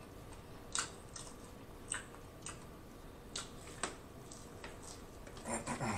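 Close-miked chewing of fried, breaded food: short crunches about a second apart, with a quicker run of them near the end.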